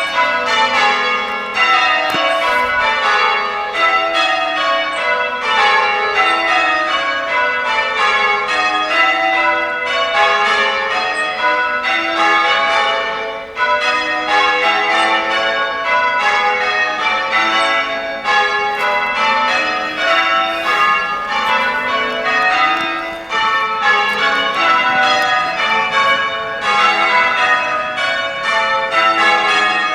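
Church bells change ringing: the front six bells of a ring of eight struck in quick succession, a steady stream of overlapping bell strokes, heard from outside the tower.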